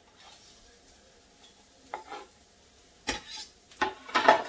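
Kitchen knife scraping and knocking minced garlic off a wooden cutting board into a frying pan, over a faint sizzle of garlic in olive oil. Mostly quiet for the first three seconds, then a quick run of sharp knocks and scrapes, the loudest near the end.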